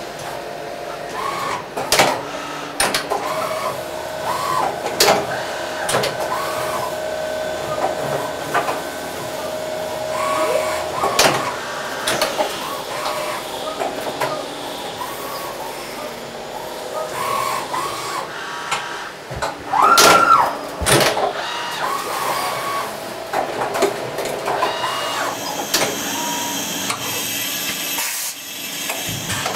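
Three-spindle CNC machining centre running: repeated short whines that rise and fall in pitch as the axes and spindles move, over a steady hum, with sharp clicks and knocks scattered through. The longest and loudest whine comes about two-thirds of the way in.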